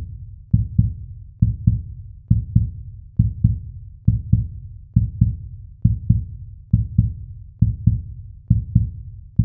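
Heartbeat sound effect: pairs of low thumps, lub-dub, repeating a little faster than once a second, with no other sound.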